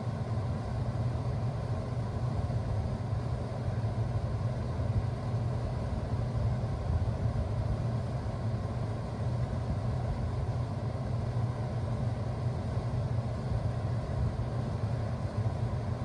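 Bard 2.5-ton wall-hung heat pump running steadily in heat mode: an even low hum from the compressor with the rush of air through the unit's louvered grille.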